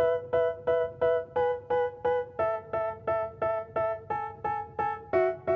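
Background music: a piano or electric piano striking the same chord over and over, about three times a second, moving to a new chord every couple of seconds.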